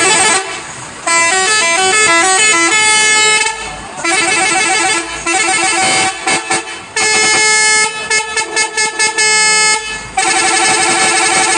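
Indonesian bus 'telolet' musical horn playing tunes: phrases of stepping notes, quick repeated toots and held chords, with brief breaks between phrases.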